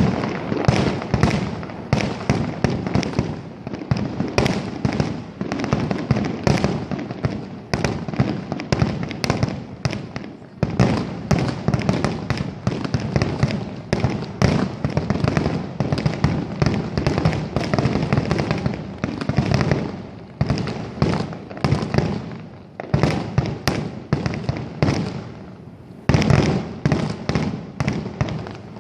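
Fireworks finale: a dense, rapid barrage of aerial shells bursting, with sharp bangs and crackling following one another almost without pause and only a few short lulls.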